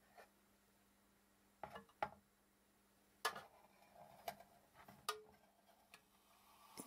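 Irregular light knocks and clicks from the small round metal spirit burner of a Jensen 75 model steam engine as it is handled and set down under the boiler on the engine's wooden base, about seven in all, the loudest around two and three seconds in.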